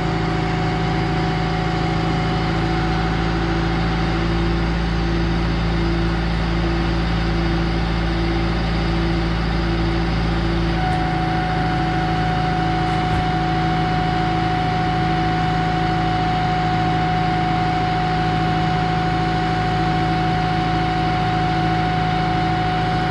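Excavator's diesel engine running steadily, with a steady high whine that drops out about four seconds in and comes back some seven seconds later.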